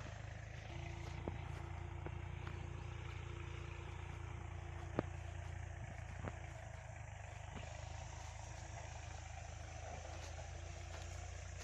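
A vehicle engine running steadily, a low rumble with a faint hum over it, broken by a few sharp knocks, the loudest about five seconds in.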